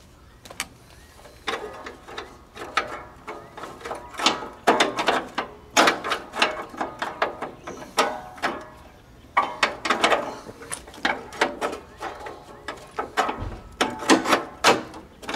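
A John Deere RX95 riding mower's starting system clicking and clunking irregularly as a weak stand-in battery tries to crank it: it acts like it's trying, but the engine does not turn over. The clicks come a few a second and are loudest near the middle and again near the end.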